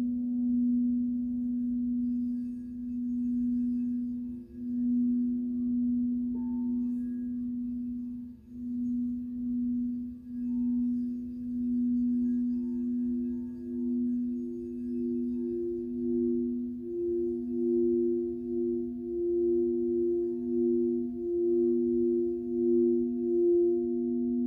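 Two frosted quartz crystal singing bowls sounding held tones, played around the rim: a lower tone pulsing in a slow, even wobble and a higher tone that swells louder over the second half.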